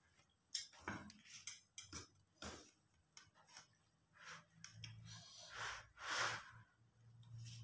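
Faint handling sounds of plates and steel spoons on a table: a scattering of light clicks and knocks with a few soft rustling swishes, and a low steady hum coming in about two-thirds of the way through.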